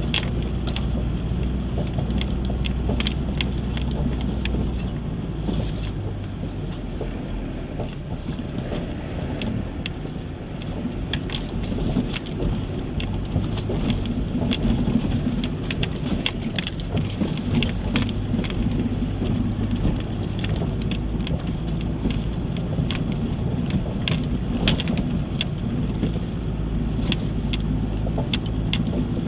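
Off-road 4x4's engine running under load on a dry dirt forest trail, heard from inside the cab, with tyres crunching over gravel and frequent small clicks and knocks from stones and rattling bodywork.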